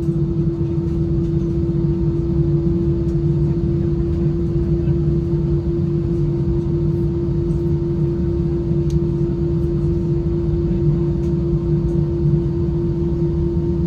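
Steady cabin drone inside an Airbus A320-214, a constant hum with one strong tone over a low rumble.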